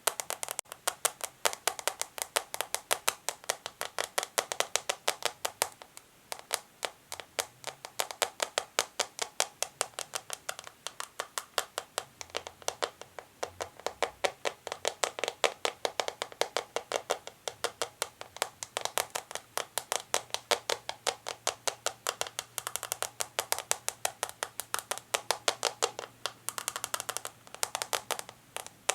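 Natural fingernails tapping quickly and steadily on small plastic, about five or six crisp taps a second, with a couple of brief pauses.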